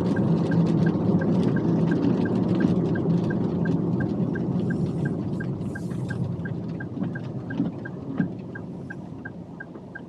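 Toyota TownAce camper van driving on a wet road, its tyre and engine noise easing off as it slows, while the turn-signal indicator clicks evenly about three times a second.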